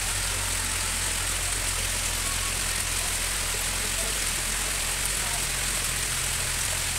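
A hydraulic crane's engine running steadily as the crane hoists the detached boom-and-bucket section of a JCB backhoe out of a gorge: a constant low drone under an even hiss.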